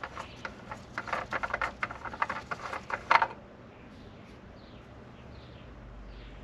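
Old spin-on oil filter of a 2007 Toyota FJ Cruiser being unscrewed by a gloved hand: quick irregular clicks and squeaks of the filter turning on its threads, ending in one louder click a little after three seconds. After that, faint short downward-sliding bird chirps repeat about twice a second.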